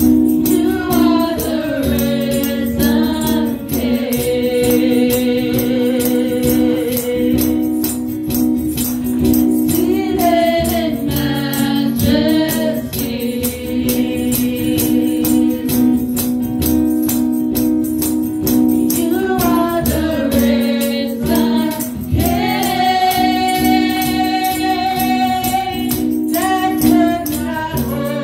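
Live gospel worship song: a woman leads the singing through an amplified microphone, with backing vocals, holding long notes, over sustained low chords and a steady shaken-percussion beat.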